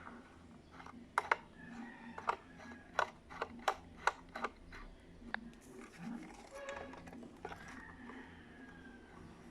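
Irregular sharp plastic clicks and taps as the alarm clock's case and battery compartment are handled, most of them in a quick run about a second to five seconds in.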